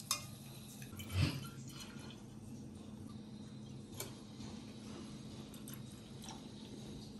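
Milk trickling and dripping faintly as it is poured from a steel pan into a glass bottle. A soft knock comes about a second in and a click at about four seconds.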